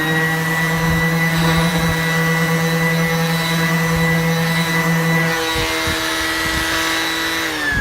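Cordless 18 V orbital sander motor running steadily with a high whine, then winding down as it is switched off near the end.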